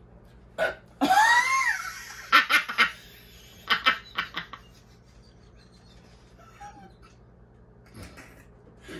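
A woman laughing: a high squeal that rises and falls about a second in, then two runs of short breathy laugh pulses, around two and four seconds in.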